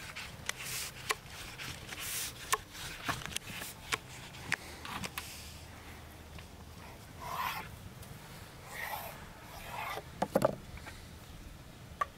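Long thin wooden rolling pin working a sheet of dough on a round wooden board: repeated rubbing swishes and light wooden clicks, with a few louder knocks about ten seconds in.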